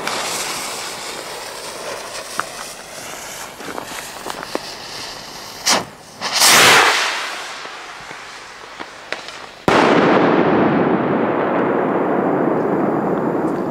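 Stick rockets' fuses hissing after being lit, then a crack and a loud rushing whoosh as the rockets take off about six seconds in. About three seconds later a single loud bang goes off, followed by a long echoing rumble as a rocket bursts.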